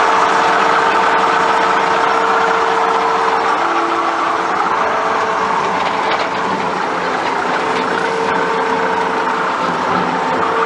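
Skid steer running while it drives a mower deck converted from PTO to hydraulic-motor drive: a steady, loud engine drone with a constant whine over it.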